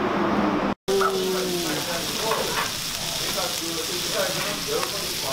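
Strips of pork belly sizzling on a hot grill plate, a steady hiss, with faint chatter of diners around it. It opens with a moment of street traffic, broken off by a short dropout about a second in.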